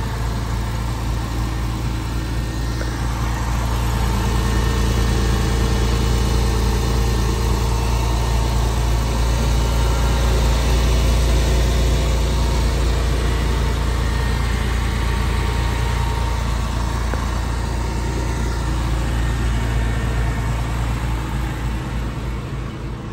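2000 Porsche 911 Carrera 4's water-cooled 3.4-litre flat-six idling steadily soon after a cold start, with no ticking or knocking. It is a little louder for several seconds near the tailpipe.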